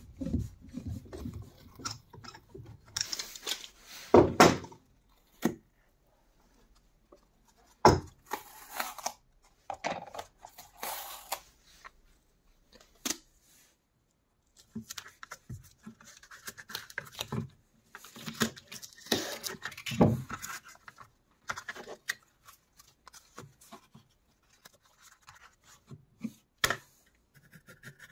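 A string of separate workshop handling noises with a few sharp knocks: a bar clamp's screw being turned on a board press, then masking tape pulled off its roll and smoothed down by hand.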